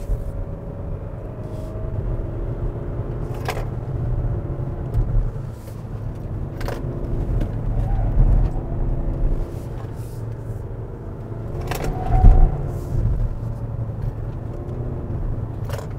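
2020 Kia Sorento's 2.2-litre diesel running under way, with steady road and tyre rumble and an engine note that rises and falls through a run of corners. A few sharp knocks come through, the loudest about twelve seconds in.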